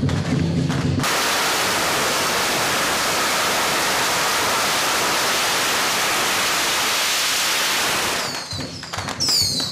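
Strings of firecrackers going off so densely that the bangs merge into a steady rush of noise. It starts suddenly about a second in and stops near the end.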